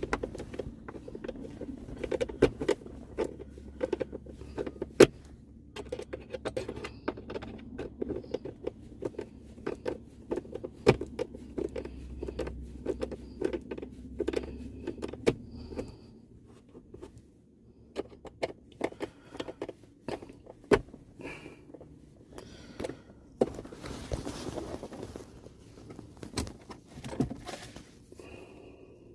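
Many small plastic clicks, ticks and rattles of hand work in a car's centre console, as trim is pried up and the USB port module is unscrewed and worked loose. A steady low hum runs under the first half and stops about halfway through.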